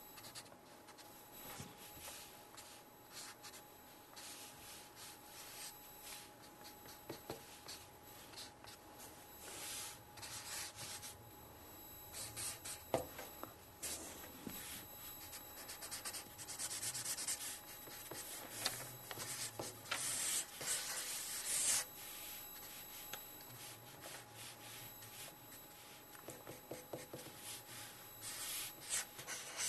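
Felt-tip marker scratching across paper in a run of short strokes and a few longer sweeps, the longest about two-thirds of the way through, as a drawing is inked by hand.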